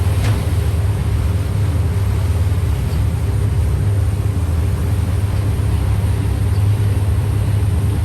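Boat engine running with a steady low drone, heard on board a ferry.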